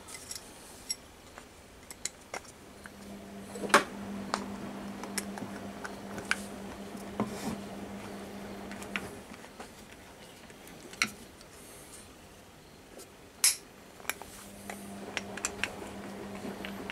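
Scattered clicks, clinks and knocks of hand tools and a pine block handled on a steel drill-press table while a screwdriver drives a screw into the pine. A low steady hum comes in twice.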